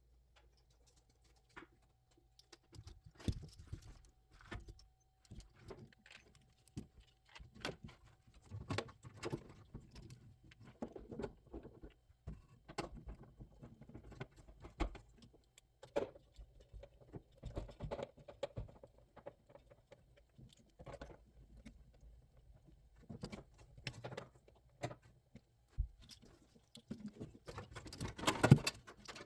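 Scattered clicks, knocks and light rattles of parts and wiring being handled while a fuse box is fitted to a truck's firewall, with a louder cluster of knocks near the end.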